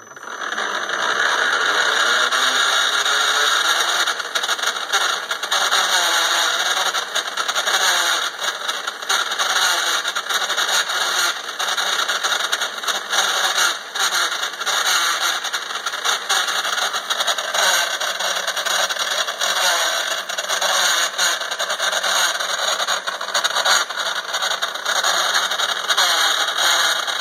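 Bevel gear set in an open engine crankcase half, spun on its shaft by a hand-held power drill: a loud, steady mechanical whir with a constant fine clatter. This is the gear noise being checked.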